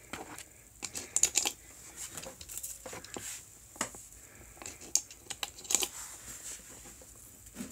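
Light, irregular clicks and taps of .22 LR cartridges being handled and pushed into a Umarex/Colt M4 .22 magazine through a magazine loader.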